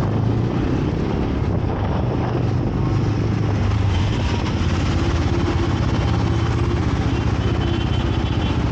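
Motorcycle engine running steadily while riding, with a constant rush of wind noise over it.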